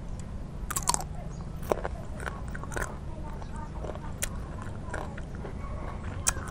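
Close-miked chewing of crunchy fruit, with sharp crunches scattered through it: the loudest about a second in and near the end. A steady low hum sits underneath.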